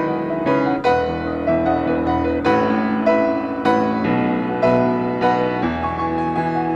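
Solo piano playing: struck notes over sustained chords, each onset decaying.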